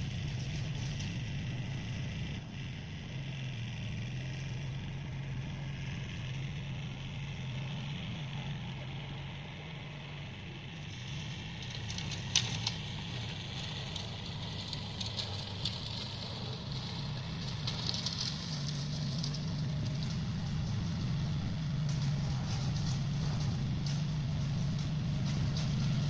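Diesel engine of a New Holland TCE 50 tractor running steadily at a distance, growing louder toward the end as it approaches. A single sharp click about halfway through.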